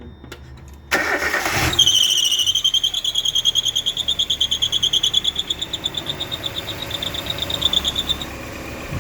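1994 Mazda Miata's 1.8-litre four-cylinder engine cranking and catching about a second in, followed by a high, rapidly pulsing squeak lasting about six seconds before it stops. The squeak comes at start-up and persists despite brand-new belts and a new alternator.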